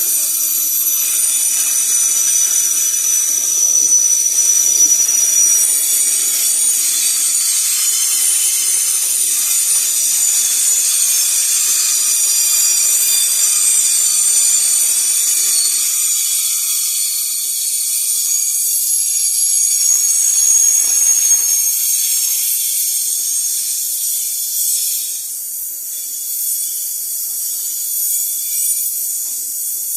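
Freight train passing with a steady, high-pitched squealing and hiss from its wheels on the rails, several shrill tones held at once and shifting slowly, easing off slightly near the end.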